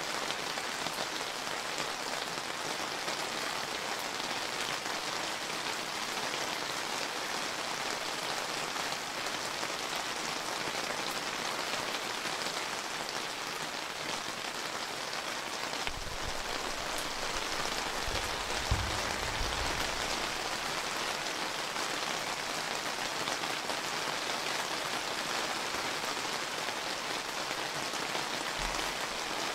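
Steady summer rain falling on surfaces, with a brief low rumble about halfway through.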